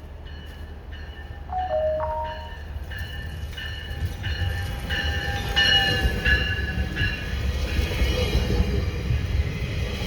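GO Transit commuter train pulling into the station, its low rumble growing louder, while a warning bell rings about twice a second and fades out after about seven seconds. A brief pitched tone sounds about two seconds in.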